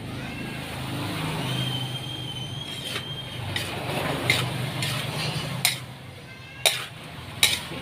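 Metal spatula stirring and scraping fried rice in an aluminium wok, with sharp clanks of metal on the pan, the loudest two about a second apart near the end. A low hum runs underneath and stops about two-thirds of the way through.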